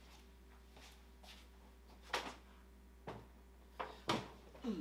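Heavy hickory slab being taken hold of and tipped up onto its edge on a wooden workbench: a handful of short wooden knocks and bumps, the loudest about four seconds in.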